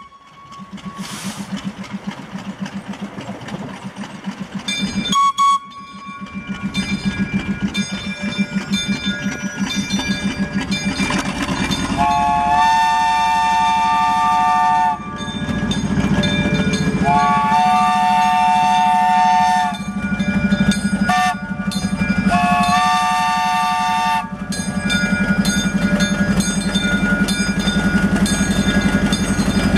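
A 1943 Plymouth switcher locomotive's engine runs steadily and grows louder as it rolls up to a road crossing. Partway in, its chime horn sounds the grade-crossing signal: two long blasts, a short one, then a final long one.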